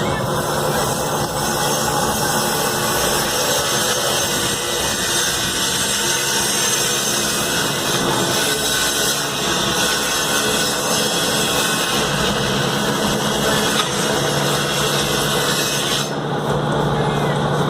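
Electric power saw running and cutting through wood panels, a loud steady rasping noise. About sixteen seconds in, the high cutting hiss drops away.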